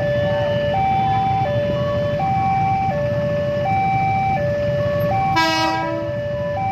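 Two-tone hi-lo siren, switching between a higher and a lower note about every 0.7 seconds, over a steady low rumble. About five seconds in comes a short horn blast.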